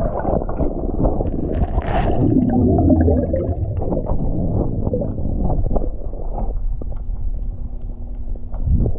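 Underwater noise: the gurgling rumble of a scuba diver's exhaled bubbles, with scattered clicks and knocks from tools working on an outboard bracket's trim anode. A steady low hum comes in for about two seconds near the end.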